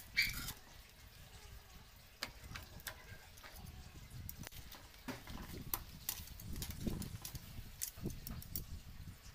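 Metal kitchen tongs clicking and tapping against a steel wok and a plate as cooked crabs are lifted out, a sharper clink just after the start and scattered lighter taps after it, over a low rumble.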